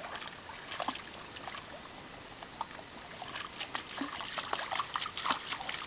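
Dog wading in a shallow, muddy stream, the water splashing and sloshing around its legs in small irregular splashes that get busier in the second half.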